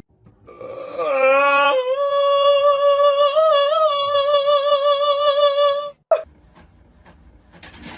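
One long, high, held vocal note with a slight waver. It starts lower for about a second, jumps up to the held pitch and cuts off about six seconds in, followed by a brief short squeak.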